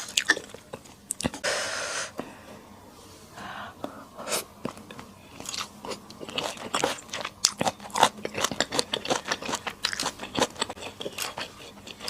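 Close-miked eating sounds of Sichuan skewer hotpot food: biting and chewing with many short wet clicks and smacks, coming thick and fast in the second half. A brief rushing noise comes between about one and two seconds in.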